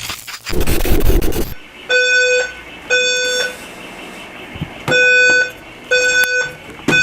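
Building fire alarm horn sounding in harsh, buzzy half-second blasts about a second apart, with a longer gap midway: an evacuation signal. Before it starts, a loud burst of noise from handling or movement fills the first second or so.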